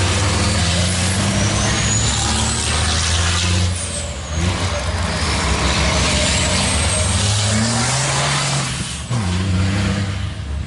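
Racing trucks' turbodiesel engines running hard as the trucks pass one after another, with a loud rushing hiss of tyres and spray on the wet track. The sound dips briefly between passes, about four and nine seconds in, and one engine's pitch rises as it accelerates out of the bend.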